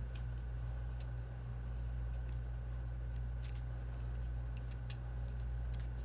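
A few faint, sharp clicks of small metal parts and tools being handled on an opened iPhone while the metal shield plate is fitted, over a steady low hum.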